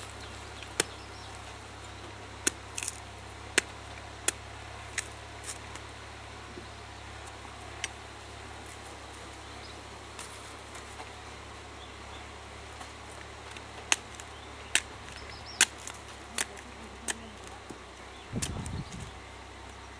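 Curved sickle blade chopping into the fibrous husks of palmyra palm fruits: sharp, separate cuts at irregular intervals, about a dozen in all, several early and a quick run of them later. A dull thump comes near the end.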